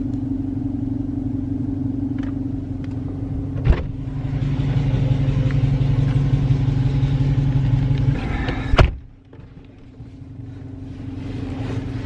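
A car engine idles steadily, heard from inside the cabin. There is a knock about four seconds in, and a loud car-door slam about nine seconds in, after which the engine sound drops.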